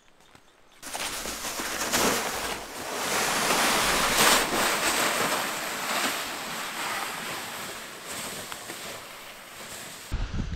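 Wind rushing and gusting across the microphone, starting suddenly about a second in.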